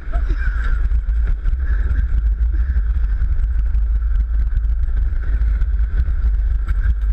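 Gravity luge cart rolling fast down a concrete track, heard from the rider's head-mounted camera: a loud, steady low rumble of wheels and rushing air with a steady higher hum above it.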